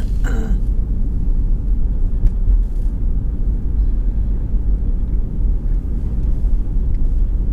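Steady low road rumble of a moving car heard from inside the cabin: tyre and engine noise at cruising speed.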